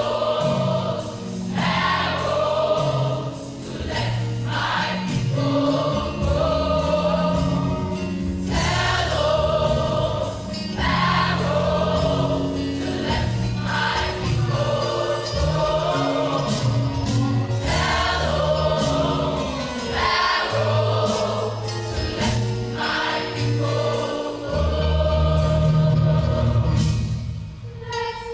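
A choir singing a gospel song over a band with bass and percussion.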